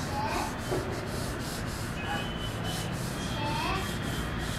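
Pen nib scratching across paper in repeated quick strokes as a sketch is drawn, with faint voices in the background.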